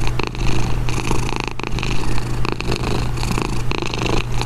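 Tabby kitten purring steadily.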